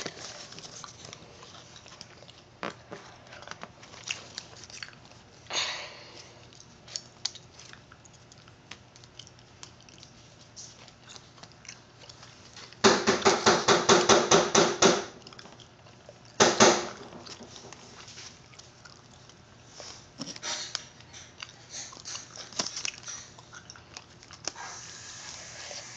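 Paper money being handled and folded on a table: soft crinkles, rustles and small taps. About halfway through comes a loud, rapid rattling lasting about two seconds, then one more short burst.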